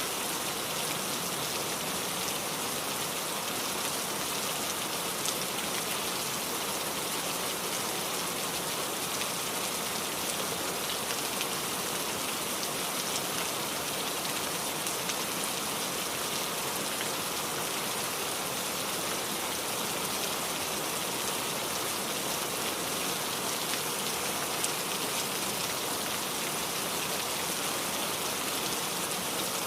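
Heavy rain falling steadily: a dense, even hiss of drops, with a couple of sharper drop taps standing out, one about five seconds in and one near twenty-five seconds.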